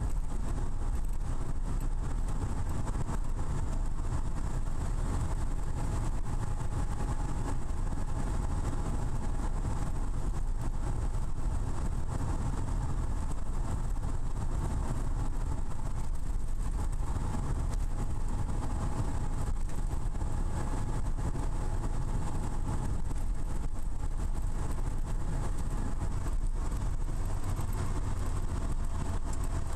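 Lotus Elise S1's Rover K-series four-cylinder engine running at a steady cruise, mixed with tyre and road noise, heard from inside the small cabin.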